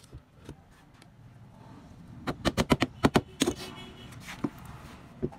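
A thin metal rod clicking against an alternator stator's laminated iron core and copper windings. A quick run of about eight sharp clicks comes in just over a second, a couple of seconds in, with a few single clicks before and after.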